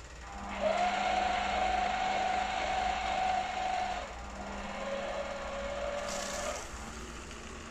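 Arzum Okka Turkish coffee machine whirring steadily as it pours the brewed coffee from its pot out through the spout into the cup. The whir drops in pitch about four seconds in, a short hiss comes around six seconds, and then it goes quieter.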